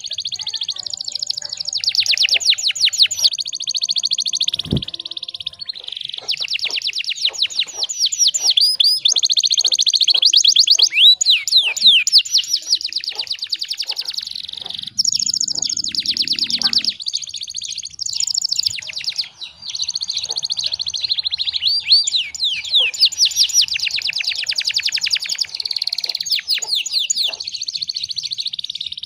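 Domestic canary singing a long, nearly unbroken song of fast trills and rapid repeated notes. A brief low thump comes about five seconds in.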